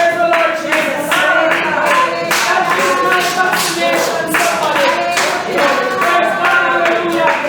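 Voices singing together with hand clapping.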